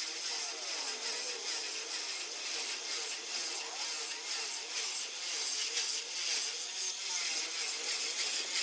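Power grinder grinding granite: a steady gritty hiss with a whine that wavers up and down in pitch as the load changes.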